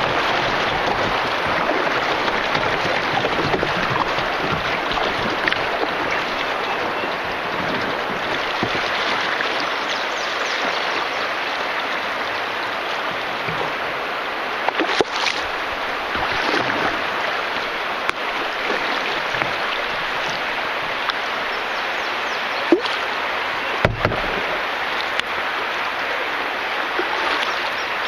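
River water rushing and splashing steadily around a canoe, as over a shallow shoal, with a few sharp knocks about halfway through and again near the end.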